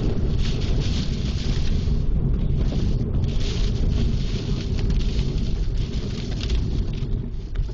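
Wind buffeting a phone's microphone: a loud, irregular rumble with a hiss that swells and fades every second or so.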